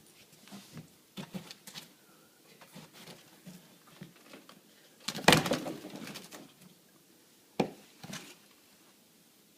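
A bird trapped inside a wall, scrabbling and flapping its wings, with scattered light scrapes and a loud burst of flapping about five seconds in, then a sharp knock a couple of seconds later.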